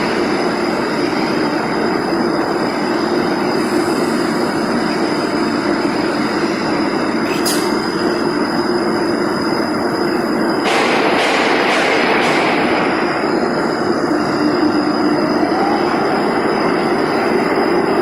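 Turntable shot blasting machine running: a loud, steady mechanical rush of noise, with a single sharp click about seven and a half seconds in and a brief louder hiss from about eleven to thirteen seconds.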